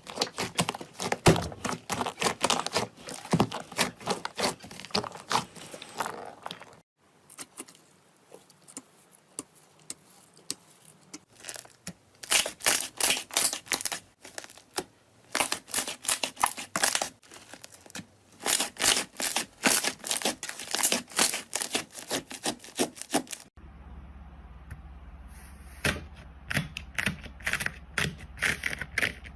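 Slime being squeezed, stretched and poked by hand, making rapid sticky clicks and pops in bursts. About three-quarters of the way through it switches to another slime clip with a steady low hum under the clicking.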